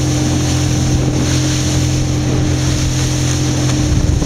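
Motorboat running steadily at speed: a constant engine hum over the rush of water churning in the boat's wake.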